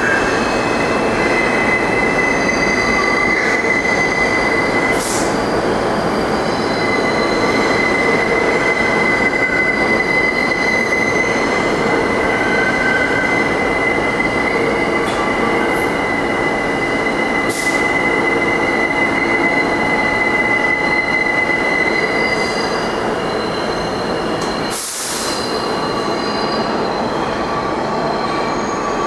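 Subway train running with a steady rumble and a sustained high-pitched metal wheel squeal, which stops about 22 seconds in. A short hiss follows a few seconds later.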